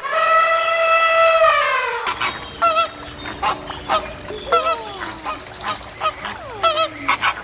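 Animal calls: one long pitched call of about two seconds that drops in pitch at its end, followed by a string of short, wavering honk-like calls.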